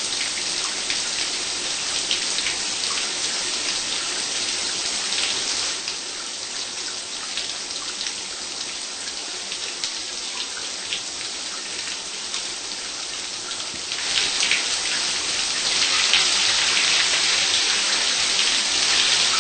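Shower running: a steady spray of water hissing down, a little quieter about six seconds in and stronger again after about fourteen seconds.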